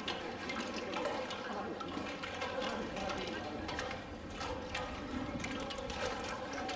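Pool water sloshing and splashing as South American sea lions swim through it, with scattered small splashes over a steady hum.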